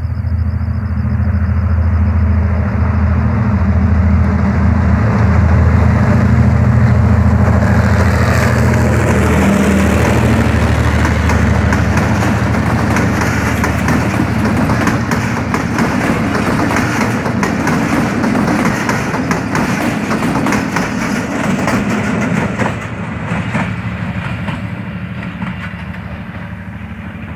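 Pakistan Railways GMCU-30 diesel-electric locomotive passing close, its engine a loud steady drone, followed by a long train of passenger coaches clattering and clicking over the rail joints. The sound fades as the train draws away near the end.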